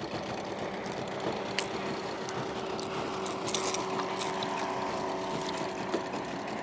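Boat's outboard motor running steadily, with a few small clicks and knocks from handling in the boat.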